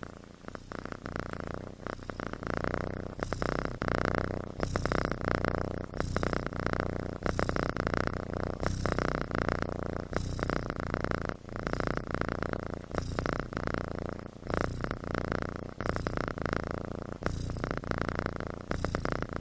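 Sleeping kitten snoring, its breathing rising and falling in a steady rhythm about every second and a half.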